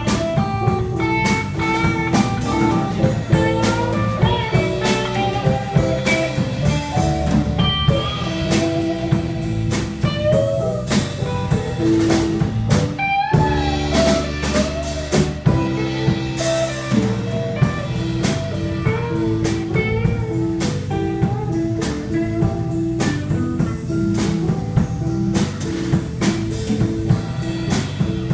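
Live rock band playing an instrumental passage on electric guitar, keyboards and drum kit, with a blues feel. The drums drop out for a moment about halfway through, then the band plays on.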